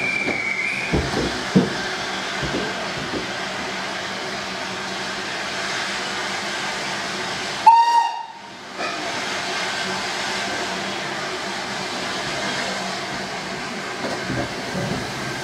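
Steam locomotive standing with a steady hiss of steam, a few knocks early on and a brief high whistle at the start. About eight seconds in, a short blast on the locomotive's steam whistle.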